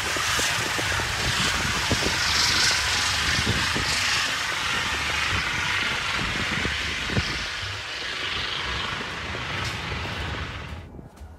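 Steady rushing noise of vehicle traffic with a low rumble underneath, cutting off abruptly near the end.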